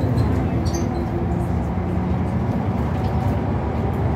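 Scania L94UB bus's five-cylinder diesel engine and drivetrain running at steady speed, heard from inside the cabin over constant road noise, with a short high click about a second in.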